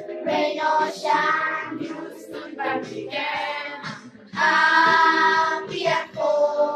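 A group of children singing a song together in unison, with a louder, longer held note past the middle.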